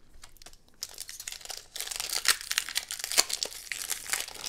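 Foil wrapper of a Pokémon trading-card booster pack crinkling as it is handled and torn open: a few faint crackles about a second in, turning dense and louder from about two seconds in.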